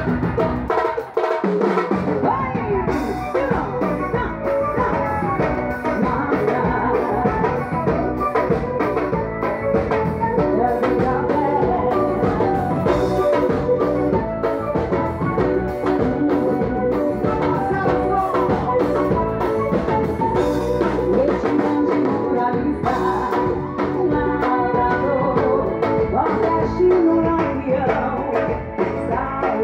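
A live band playing: a steady drum-kit beat under keyboard and a singer.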